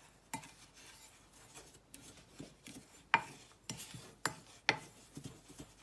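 Wooden spoon stirring dry ground spice powder in a glass measuring jug: a soft scraping rasp through the powder, with several sharp taps of the spoon against the glass in the second half.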